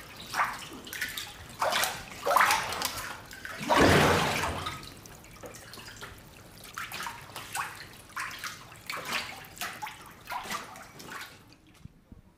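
Water sloshing and splashing in a washi papermaking vat as the papermaker rocks the mould through the pulp slurry, in a run of irregular surges with the biggest about four seconds in. The sloshing stops shortly before the end.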